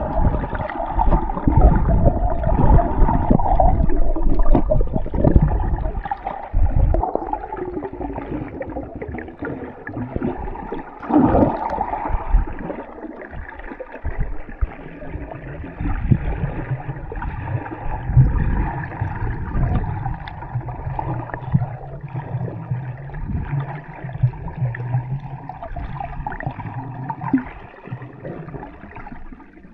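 Muffled underwater water noise picked up by a submerged camera in its housing: uneven sloshing and gurgling with irregular low thumps, louder in the first few seconds.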